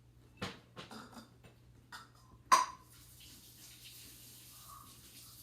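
Drinking glasses and straws handled on a table: a few light knocks, then one sharp glass clink with a short ring about two and a half seconds in, followed by a faint steady hiss.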